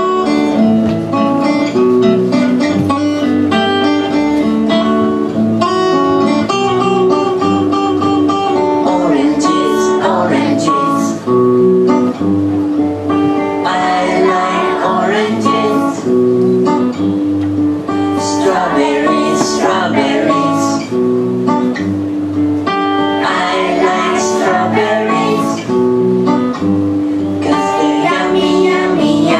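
A song with guitar accompaniment and singing that comes and goes between the guitar passages.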